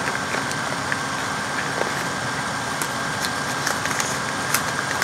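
Steady background hiss with a faint thin whine, over small scattered crinkles and clicks of paper tea sachets being handled.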